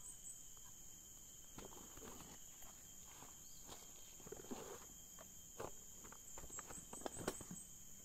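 Faint forest ambience: a steady, high-pitched drone of insects such as cicadas and crickets. Scattered short crunches and rustles run through it, and a short run of quick high chirps comes about six seconds in.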